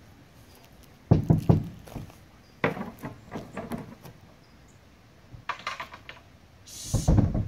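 Bursts of knocking and thumping inside a fiberglass boat as someone works around the engine compartment to get at a baby raccoon hiding under the engine. There are four clusters of knocks: about a second in, around three seconds, near six seconds, and a last heavy group with a short hiss near the end.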